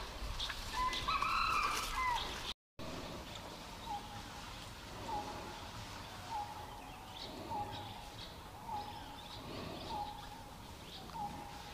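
Forest birdsong. A few whistled notes at first, then a bird repeating one short, low note about once every 1.2 seconds.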